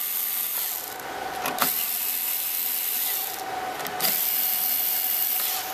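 Cordless electric screwdriver running as it backs out chassis screws: one long run, a short break a little past three seconds in, then a second run.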